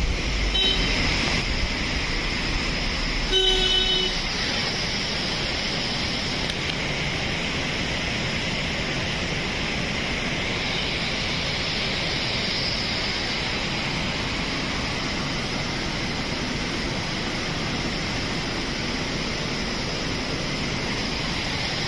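Monsoon-swollen river in flood, muddy water rushing steadily with a constant hiss-like rush. A vehicle horn sounds briefly about half a second in and again, louder, around three and a half seconds in.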